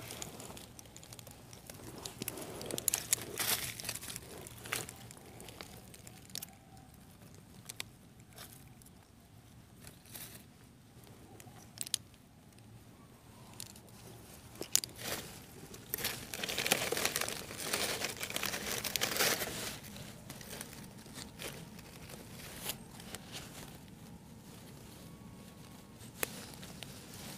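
Irregular rustling and crinkling of forest-floor leaf litter and undergrowth being stepped through and pushed aside, in uneven bursts, loudest a few seconds in and again past the middle.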